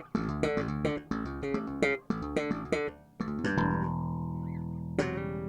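Yamaha TRBX305 five-string electric bass played with quick, sharply plucked notes. About three and a half seconds in, several notes ring together and are held, and near the end one more note is struck and rings on.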